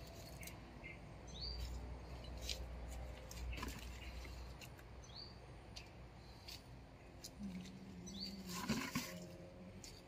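Faint outdoor ambience with three short, high, rising bird chirps spread through it, a few light ticks and clicks, and a low steady hum. Near the end comes a brief louder burst of noise.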